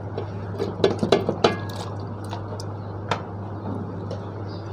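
A utensil clinking against a cooking pot as chicken curry is spooned onto a layer of parboiled rice for biryani. There is a quick cluster of clinks about a second in, one with a brief ring, and a single knock about three seconds in.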